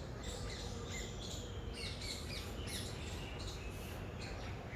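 Pet parrot chirping: a string of short, high chirps and quick pitch glides, several a second, over a low steady background hum.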